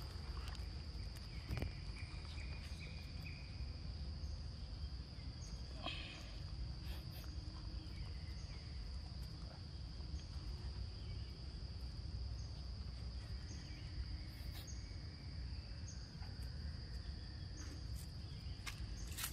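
Insects droning steadily in one high-pitched tone over a low background rumble, with a few soft clicks and rustles.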